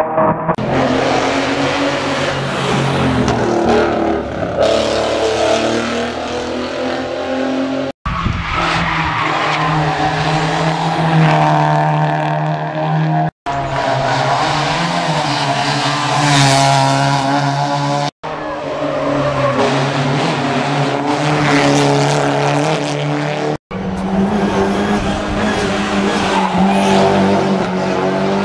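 Rally cars driven hard on a stage, engines revving high and rising and falling through the gears, with tyre skidding noise. The sound breaks off abruptly four times as one passage gives way to the next.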